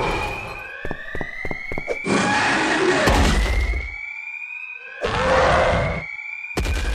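Whooping alarm siren, its pitch rising again and again about every two seconds. A quick run of clicks comes about a second in, and loud rumbling noise bursts come twice over it.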